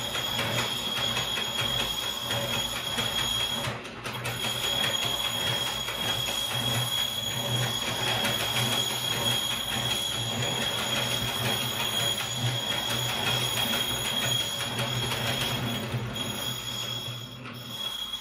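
Antique hand-cranked bench grinder turned by its crank, its gear train whirring steadily with a high, even whine while a small steel pin is held against the spinning grinding wheel. The sound breaks off briefly about four seconds in, then runs on.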